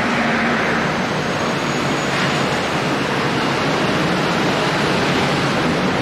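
Steady noise of heavy city street traffic, an even wash with no single vehicle or event standing out.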